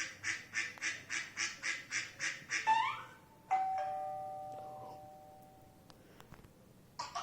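Novelty sound effects played for a dog: a quick run of about ten honking pulses, then a short rising squeak and one long ringing chime that fades away over about two seconds.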